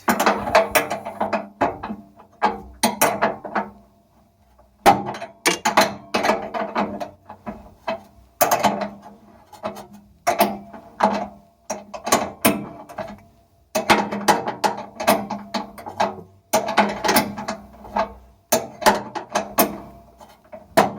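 Fast ratcheting clicks in about nine short bursts of a second or two each, separated by brief pauses: a tool undoing the fasteners while a Bosch washing machine is taken apart.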